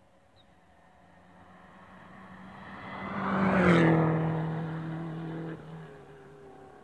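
Rally car at speed on a tarmac stage, approaching and passing close by. Its engine note builds to a peak and drops in pitch as it goes past, about three and a half seconds in. About five and a half seconds in the engine note cuts back suddenly, and the sound fades as the car drives away.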